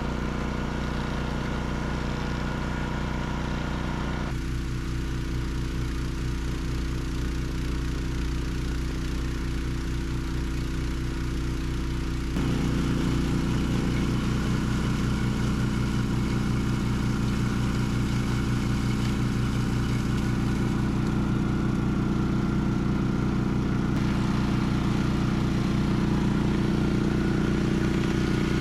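Honda HSM1380i hybrid snowblower's engine running steadily. It changes character about four seconds in and gets louder about twelve seconds in.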